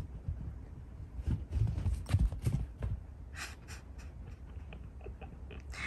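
A cat galloping across tatami mats. There is a quick run of dull paw thumps from about a second in, then a few sharper taps and lighter patters as it slows.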